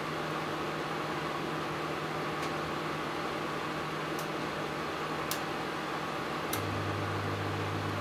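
Daewoo microwave oven running on defrost: a steady hum with a few short, sharp clicks, and a deeper hum that comes on with a click near the end.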